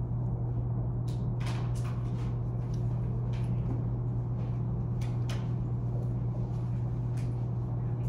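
Classroom room tone: a steady low hum with scattered light clicks and knocks at irregular moments.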